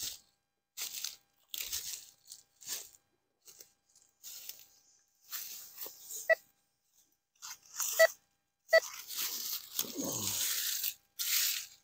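Footsteps and body movement crunching through dry leaf litter and brittle brush, in irregular bursts, with twigs and dead stems crackling.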